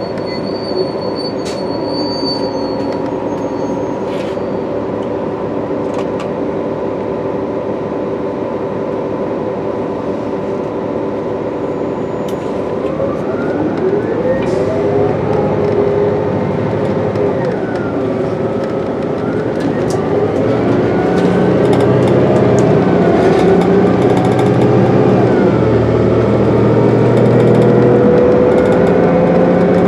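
Cummins ISL 8.9-litre diesel engine of a New Flyer D60LFR articulated bus, heard from inside the passenger cabin, idling steadily at first. About halfway through it revs up as the bus pulls away, the pitch climbing, dropping back at each Allison automatic transmission upshift and climbing again, the sound growing louder.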